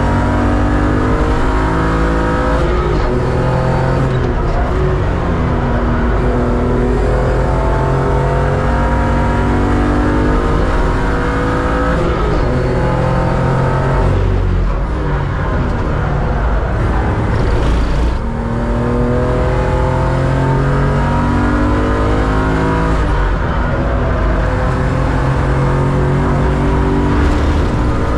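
BMW 325 Cup race car's straight-six engine under hard acceleration, heard from inside the cabin: the pitch climbs and drops again and again as it runs up through the gears. About halfway through it comes off the throttle for a few seconds of rougher, unpitched noise, then climbs through the gears again.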